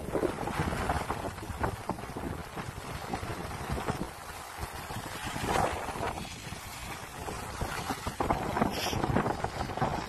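Wind buffeting the microphone of a skier moving downhill, in uneven gusts, with skis hissing and scraping over snow.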